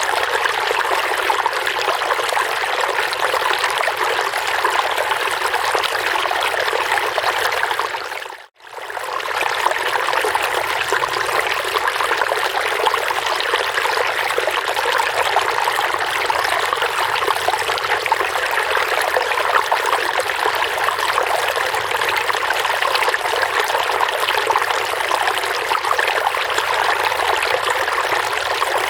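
Running water trickling and splashing steadily. About eight seconds in it briefly fades out and back in.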